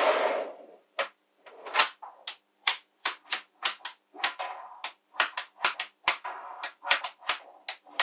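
Small neodymium magnetic balls clicking as strips of them snap onto a flat ball sheet: sharp, irregular clicks at about two or three a second, with light rustling between some of them. A short rustle sounds at the very start.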